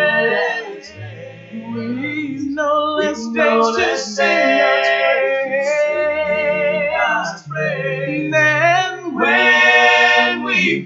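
Male a cappella vocal group singing in close harmony, held chords over a low bass voice, with no clear words.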